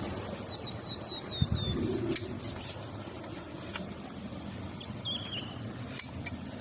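A bird calling: a quick run of about six short falling chirps, then another short chirping call later, over steady outdoor background noise with a few faint clicks.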